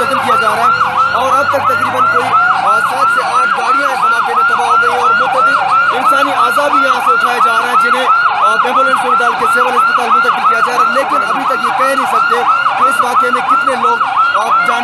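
Ambulance sirens: one sounds a fast warble, about four cycles a second, throughout. Another sounds a slower wail that glides down and back up in the first few seconds, and a rising wail starts again near the end.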